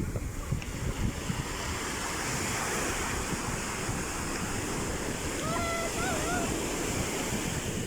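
Sea waves surging on the shore: a steady wash of surf. About five and a half seconds in, a brief wavering pitched call sounds over the surf.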